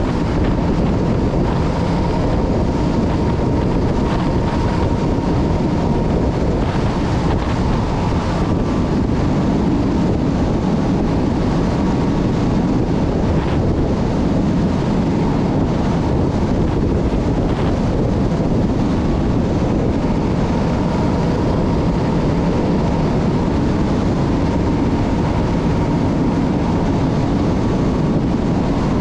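MAN LE280B 4x4 truck driving at a steady pace: the diesel engine running under tyre and wind noise, with a faint steady whine above.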